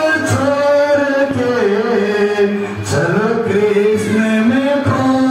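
A man singing into a handheld microphone, amplified, holding long melodic notes that slide up and down in pitch over a repeating low beat.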